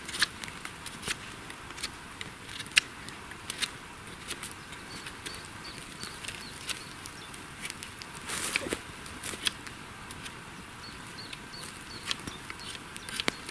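Irregular sharp cracks and snaps of dry wood: a small campfire crackling as it is tended and fed with sticks, with a denser run of snaps about eight seconds in.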